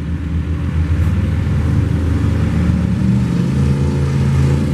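Late-1970s Ford pickup's engine running hard and steady under heavy load as it drags the pulling sled, labouring at an even pitch: the truck is struggling to move the sled, possibly in the wrong gear.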